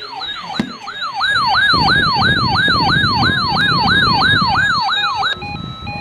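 Electronic alert siren yelping in fast rising-and-falling cycles, about three a second. A little over five seconds in it switches to a short pattern of stepped beeps on a few fixed pitches: the alarm that opens a tornado warning broadcast.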